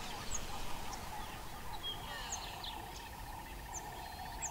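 Bushland ambience: short, high bird chirps scattered throughout over a steady insect hum, with a fast, even insect trill starting a little after halfway.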